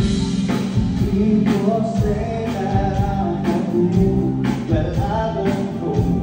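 Live band playing a song with a lead singer over amplified electric guitars, keyboard and drums, with a steady drum beat.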